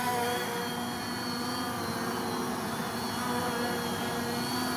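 MJX Bugs 2 quadcopter's four brushless motors and propellers buzzing steadily as it hovers low, a whine of several held tones that waver slightly.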